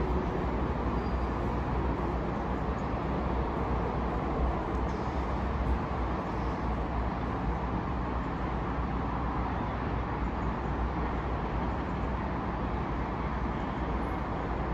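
Steady outdoor background rumble and hiss, like distant road traffic, with a strong low rumble throughout.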